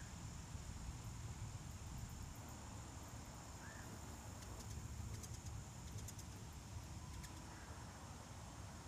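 Quiet outdoor background: a steady high-pitched drone typical of crickets or other insects over a low rumble, with a few faint short chirps and ticks.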